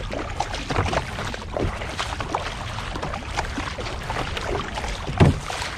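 Kayak paddle strokes: the blade dips and splashes into the sea every second or so, over steady water and wind noise, with one louder stroke just over five seconds in.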